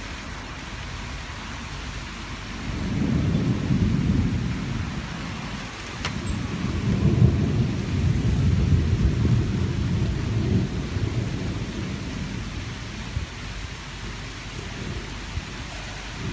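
Steady hiss of rain falling, with two long low rumbles swelling up, one about three seconds in and a longer one from about six to eleven seconds in.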